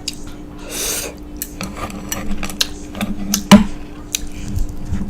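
Eating utensils clinking and scraping against takeout food containers: a quick rustle, then a run of light clicks and clinks, the loudest a sharp clack about three and a half seconds in.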